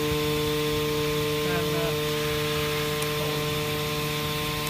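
Stama MC 331 Twin vertical machining centre's spindles running at a steady speed of about 9,000 rpm, giving a steady whine made of several tones held at one pitch.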